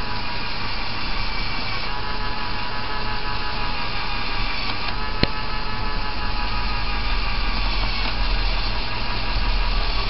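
LEGO Technic crane's Power Functions electric motor and plastic gear train running steadily, working the grab bucket's hoist. One sharp click comes about five seconds in.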